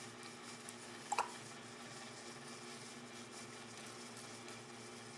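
Faint steady room tone, a low hum under a light hiss, with one brief click about a second in.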